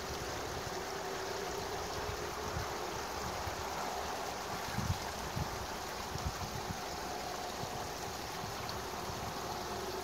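Steady outdoor rushing hiss under a faint low hum, with a few short low thumps of wind buffeting the microphone about halfway through.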